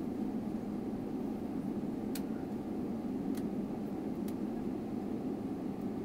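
Steady cabin rumble inside a Boeing 777-300ER taxiing, the engines at low taxi power. Three faint sharp ticks come about two, three and four seconds in.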